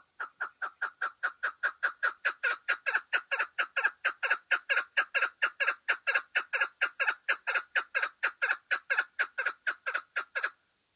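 Chukar partridge calling: a long, rapid run of short repeated 'chuck' notes, about five a second. The notes grow louder over the first couple of seconds and stop abruptly near the end.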